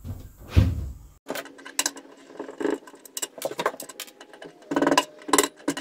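A dull thump, then hand tools being rummaged through in a toolbox: quick, irregular clicks and metallic clinks, with a cluster of ringing clinks near the end.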